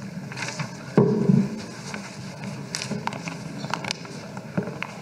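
Room noise picked up by the chamber microphones: paper rustling and scattered small clicks, with a louder low bump about a second in.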